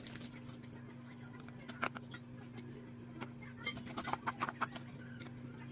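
Scattered light clicks and knocks, with a quick run of taps about four seconds in, over a steady low electrical hum.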